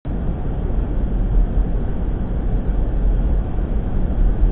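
Steady low rumble of a vehicle on the move, heard from inside its cabin: engine and tyre noise, heaviest in the deep bass.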